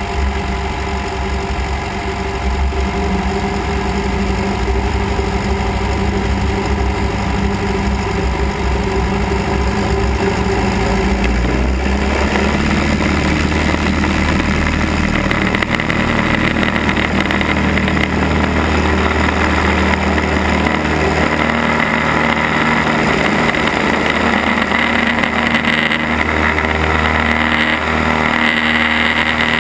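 Cessna 172's piston engine and propeller running at low power, then throttled up about twelve seconds in to a louder, steady full-power note for the takeoff roll.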